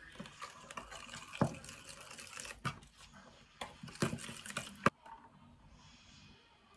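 Wooden chopsticks stirring a liquid marinade in a glass dish: wet sloshing with repeated sharp clicks and taps of the chopsticks against the glass, which stop about five seconds in.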